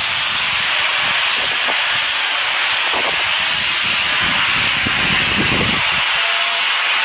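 Pressure washer's high-pressure water jet hissing steadily as it blasts grime off the stone face of a monument.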